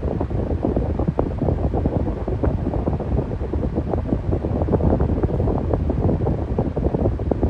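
Electric fan running steadily: a low rushing noise of moving air with a constant fluttering, as the airflow buffets the microphone.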